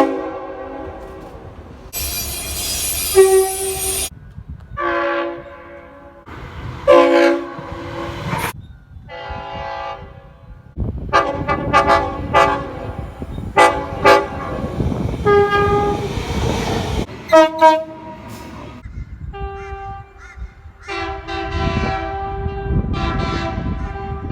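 Train horns sounding in a rapid series of short horn blasts of different lengths and pitches, changing abruptly from one to the next, over the rumble of rail traffic. There is a loud burst of hiss about two seconds in.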